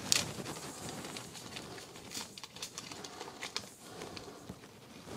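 A yeast packet being torn open and shaken out over a stainless steel mixing bowl: faint crinkling with scattered small ticks.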